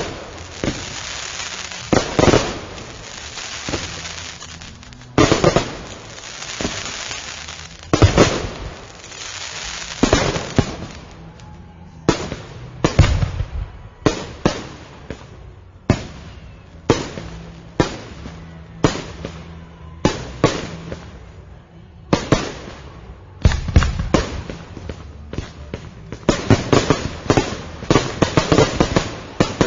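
Fireworks display: a constant run of explosions, with sharp bangs coming every second or two over a crackling hiss. Several times the bangs bunch into fast volleys of many shots in quick succession.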